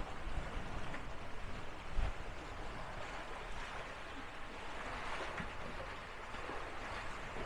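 Water rushing and splashing along the hulls of a sailing trimaran under way, with wind buffeting the microphone and a low thump about two seconds in.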